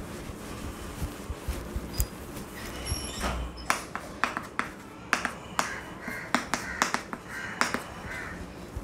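A duster rubs faintly on a blackboard, then chalk writes on it. From about three seconds in there are many sharp, irregular clicks and short scratches as the chalk taps and drags through each stroke.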